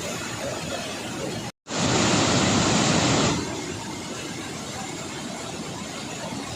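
Water rushing steadily out of opened dam gates. The sound breaks off for an instant about one and a half seconds in, then comes back louder for about a second and a half before settling back to a steady rush.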